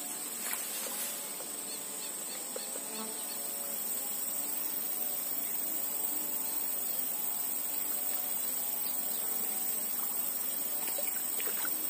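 Steady high-pitched drone of insects such as crickets or cicadas, with faint wavering calls underneath from small animals.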